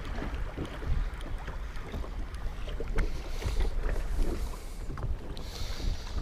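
Choppy lake waves slapping irregularly against the side of a fishing boat, with wind buffeting the microphone in a low rumble. Brief hissing splashes come about halfway through and again near the end.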